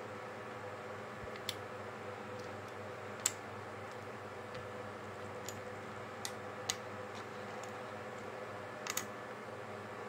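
Small plastic LEGO pieces clicking as they are picked up and set down on a wooden table, about six sharp, scattered clicks with a close pair near the end. A steady low hum and hiss runs underneath.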